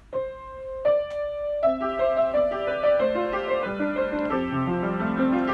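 Solo piano music: two single notes struck about a second apart, then a flowing line of many notes over a lower part that steps downward.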